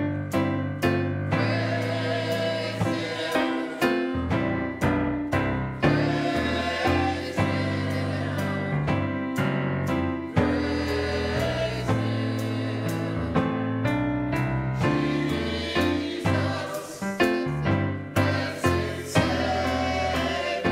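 Gospel choir singing, accompanied by a drum kit and keyboard, on a steady beat.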